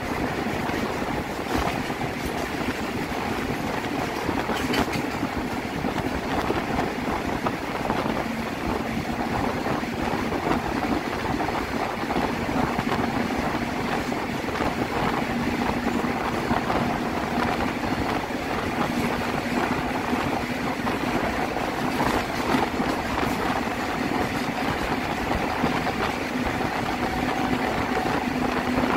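Electric-hauled goods trains running side by side on parallel tracks: a steady rumble of wheels on rail with a steady locomotive hum running through it, and a few sharp clicks.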